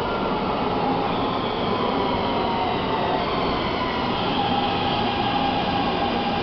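Taipei Metro C321 electric train pulling into an underground station platform: a steady rumble of wheels on rail with a whine that slowly falls in pitch as it slows.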